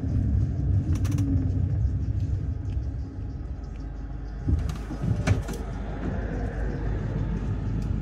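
City bus running, heard from inside the cabin: a steady low engine and road rumble, with a few sharp rattles about a second in and a cluster of knocks a little past the middle.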